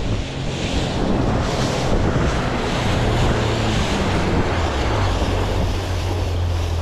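Boat running at speed: water rushing and spraying along the hull, heavy wind buffeting the microphone, and a steady low engine hum underneath that grows a little stronger near the end.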